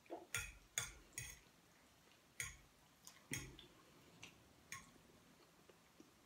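A person eating spaghetti: about eight short, wet clicks and smacks of chewing, spaced irregularly, with a cluster near the start and more around the middle.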